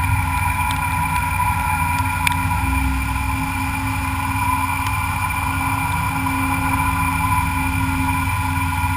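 A metalworking machine tool running steadily, a constant hum with a high whine over a low rumble, with a few light ticks near the start.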